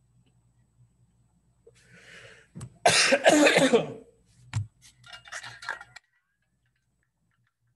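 A man's coughing fit: a breathy intake, then a loud spluttering burst of coughs of about a second and a half, a sharp knock, and a shorter round of coughing. The sound cuts off suddenly about six seconds in.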